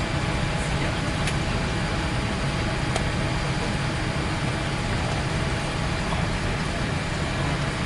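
Steady rush of airliner cabin air conditioning and ventilation inside a Boeing 787 parked at the gate during boarding, with a couple of faint clicks.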